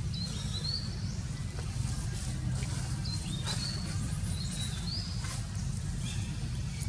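Animal calls: a series of short, high-pitched chirps that glide upward, repeated several times over a steady low rumble.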